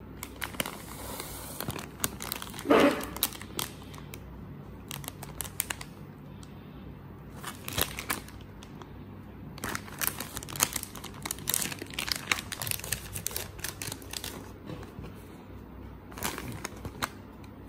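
Plastic snack wrapper crinkling and crackling in the hands as a packaged croissant is handled and opened, with one louder noise about three seconds in.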